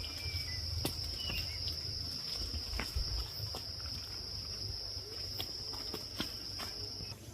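Insects in the forest making a steady high-pitched drone that cuts off just before the end, with a few faint clicks and a low rumble beneath.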